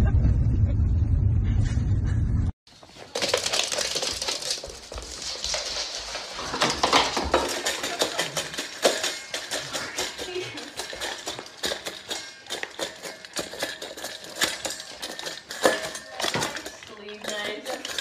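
A loud low rumble cuts off abruptly about two and a half seconds in. After it, a dog working its muzzle in a stainless steel bowl sets off rapid, irregular clinks and clatters of the metal bowl.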